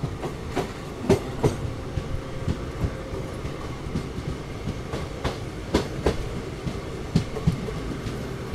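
Passenger express train pulling slowly out of a station, heard from the coach doorway: a steady low rumble with irregular sharp clicks and clanks from the wheels on the track, one or two a second.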